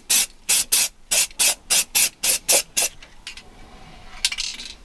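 Aerosol paint can spraying in about a dozen short bursts, roughly four a second, stopping about three seconds in. A longer spray follows near the end.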